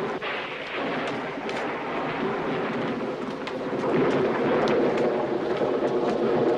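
Steady rain with a low rumble beneath it and scattered small knocks.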